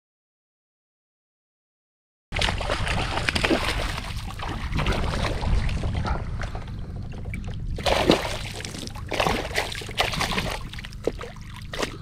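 Dead silence for about two seconds, then a hooked largemouth bass splashing at the surface among lily pads as it is reeled toward the kayak, with repeated sharp splashes, the loudest about eight seconds in.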